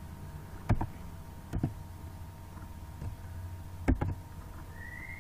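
A few separate computer keyboard key presses, sharp clicks spaced about a second apart, over a steady low electrical hum.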